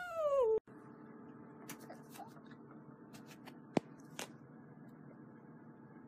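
A domestic cat's long yowl, falling in pitch, cut off abruptly after about half a second: the cat is crying while its claws are clipped. Then a faint steady room hum with a few scattered clicks and taps, one sharper click near the middle.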